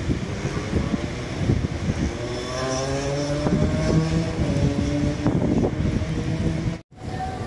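A tram or bus in city traffic pulling away, its motor note rising in pitch over a couple of seconds, with street noise around it. The sound cuts off abruptly near the end.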